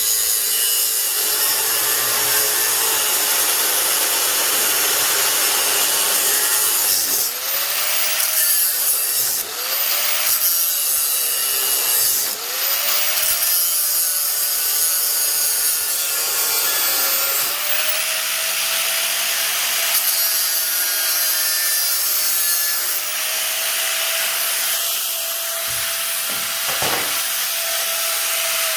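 Power grinder on metal: a steady high hiss of the abrasive against the work, with the motor's whine sagging and recovering several times as it is pressed in and eased off, then holding steady.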